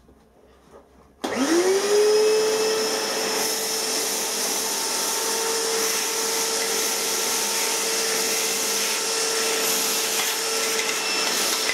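Shop vacuum switched on about a second in. Its motor spins up with a quickly rising whine, then runs steadily while the nozzle sucks metal chips off a milling machine table and vise.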